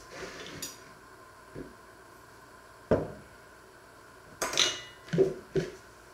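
Kitchen items being handled on a wooden worktop: a wooden cutting board shifted and knocked down on the counter about three seconds in, then a clattering clink and two quick knocks near the end.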